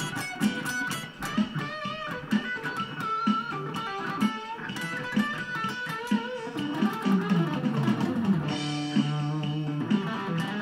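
Guitar music: quick plucked notes with bent, wavering notes over a bass line.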